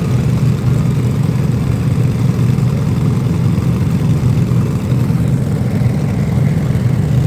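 Steady, loud low rumble of a running engine.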